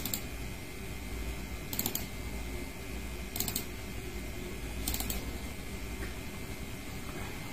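Four sharp double clicks about a second and a half apart over a steady low hum.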